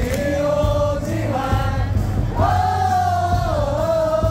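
A stadium crowd of baseball fans singing a cheer song together in unison, with long held notes that shift in pitch every second or so, over steady amplified backing music.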